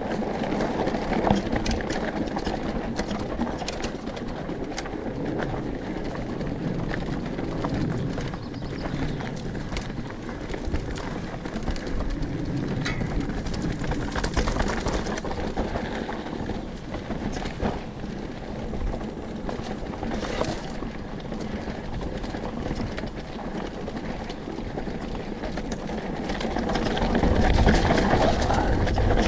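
Enduro mountain bike rolling down loose, rocky dirt singletrack: a steady rush of knobby tyres on dirt and stones with scattered clicks and rattles from the bike, growing louder with a deeper rumble near the end.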